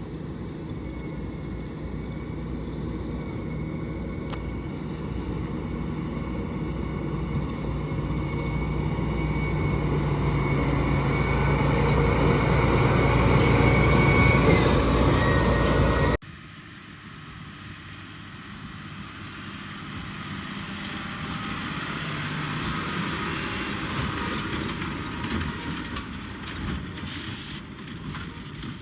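Tractor engine running steadily, growing louder for about sixteen seconds. It then cuts abruptly to a quieter, steady engine sound.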